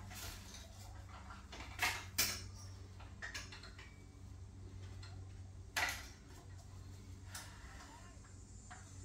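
Scattered metal clinks and knocks as a saw and the metal mounting fittings of a saw stand are handled and fitted together. There are a handful of sharp clanks spread a few seconds apart, over a steady low hum.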